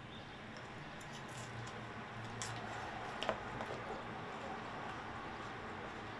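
Close-up chewing and wet mouth sounds of a person eating a spoonful of white rice and fried fish, with scattered small clicks and one sharper click about three seconds in.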